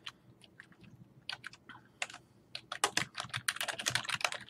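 Typing on a computer keyboard: a few separate keystrokes in the first two seconds, then a quicker run of keys near the end.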